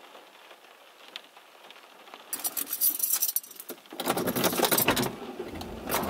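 Keys jangling in a truck cab, then the engine starts about four seconds in and keeps running.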